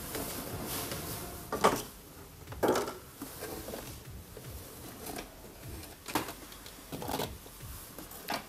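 Scattered knocks and clunks of hands and a handheld work lamp bumping the plastic dashboard and footwell trim of a car interior, about five sharp knocks spread through.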